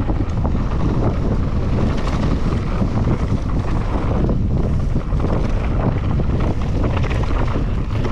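Wind buffeting the microphone during a fast mountain-bike descent, over a continuous rumble and rattle of the bike's tyres running on the dirt trail.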